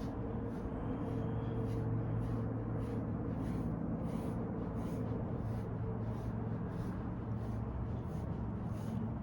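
A grooming brush stroking through a dog's coat: soft, even swishes about two a second, over a steady low hum.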